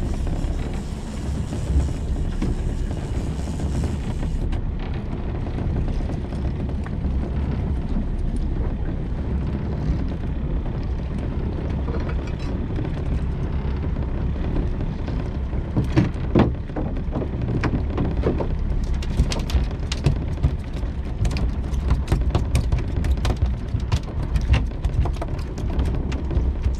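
Steady low rumble of a small fishing boat's engine at idle. From about halfway through come many sharp knocks and taps as the mackerel line is hauled in over the stern and a fish comes onto the deck.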